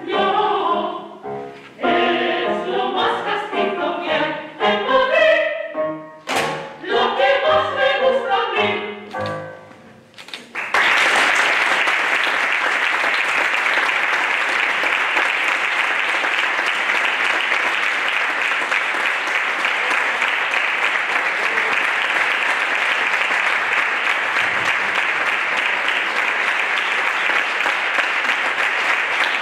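A group of women singers with piano finishes a chotis; the music stops about ten seconds in and is met at once by loud, steady audience applause that goes on to the end.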